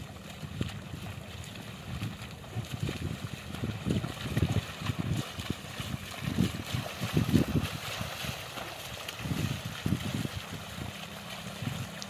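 Muddy water sloshing and splashing in a flooded rice paddy as a bull drags a wooden plank through it and the farmer wades behind, with irregular low buffeting, heaviest in the middle of the stretch.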